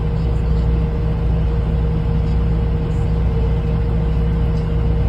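Semi truck's diesel engine idling, heard inside the cab: a steady low drone with a thin steady tone above it.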